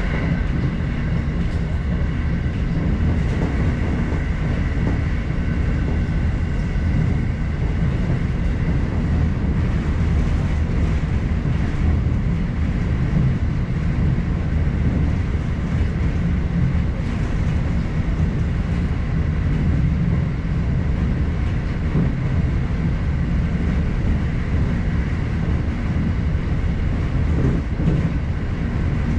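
Electric commuter train running steadily along the line, heard from inside the car: a continuous rumble of wheels on track with a faint steady high whine.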